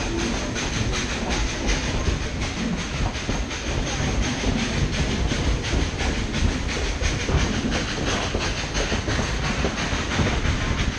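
Baldwin 2-8-2 narrow-gauge steam locomotive working upgrade, its exhaust chuffing in a rapid, even beat, with the coaches' wheels clicking over the rail joints.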